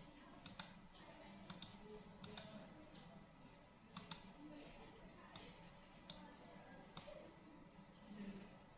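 Faint clicks of a computer mouse, about ten of them spread through the stretch, several coming in quick pairs, over low room noise.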